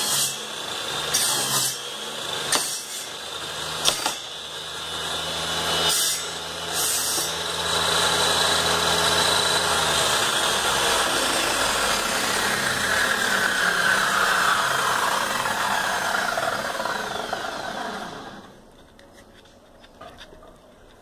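Homemade table saw running while a pine block is fed across the blade, with several short louder peaks in the first seven seconds. About ten seconds in the motor is switched off and the blade spins down with a falling whine, dropping away about eighteen seconds in.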